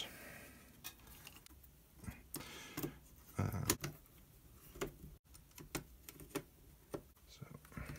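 Faint, irregular small clicks and taps of a precision screwdriver turning small screws and of parts being handled on the display's sheet-metal frame, with a few louder knocks in the middle.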